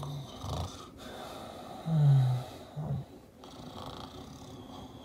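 A man snoring: a few short snores, with one longer, louder snore about two seconds in that falls slightly in pitch.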